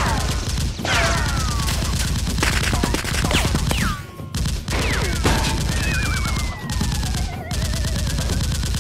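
Rapid automatic gunfire sound effects, dubbed over a Nerf blaster fight, firing in long strings with a brief break about four seconds in. Several falling whistles ring out over the shots.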